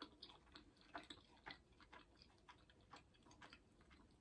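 Faint, irregular wet clicks and smacks of someone chewing food close to the microphone.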